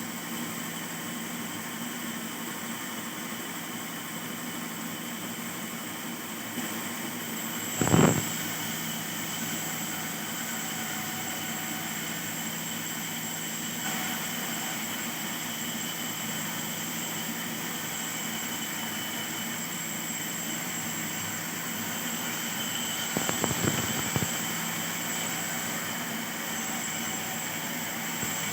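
A motor hums steadily with several even tones. It is broken by one loud knock about eight seconds in and a short cluster of knocks and scraping near twenty-three seconds.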